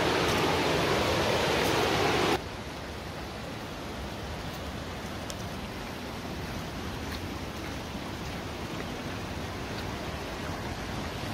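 Steady rush of a mountain stream in a rocky gorge. It cuts off abruptly about two seconds in to a quieter, even rush of water with a few faint scattered ticks.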